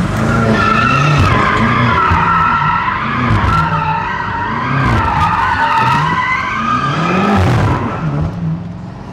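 Tuned BMW M8 convertible's twin-turbo V8 revving up and down about once a second while the rear tyres spin and slide, giving a long, continuous tyre squeal as the car drifts, heard from inside the open-top cabin.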